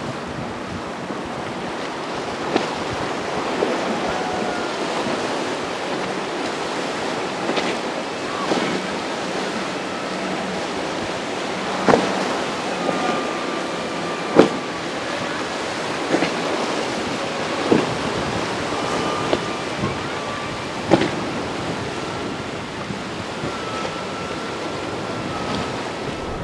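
Surf and choppy waves washing, with wind buffeting the microphone. About nine sharp knocks stand out over it, the strongest about halfway through.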